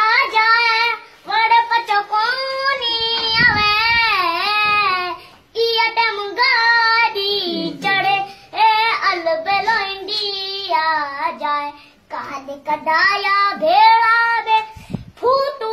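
A young boy singing unaccompanied, with long held notes that bend and waver in pitch, in phrases broken by two short breaths about five and twelve seconds in.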